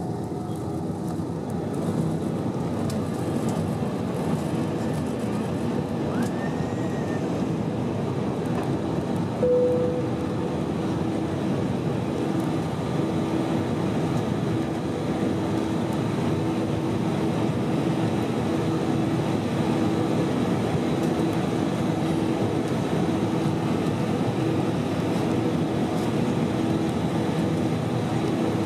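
Airbus A320-232's IAE V2500 turbofans at takeoff thrust, heard inside the cabin over the wing: a steady engine and airflow rush with a low hum beneath, as the jet lifts off and climbs out. The sound steps up a little about two seconds in, and a short tone sounds about ten seconds in.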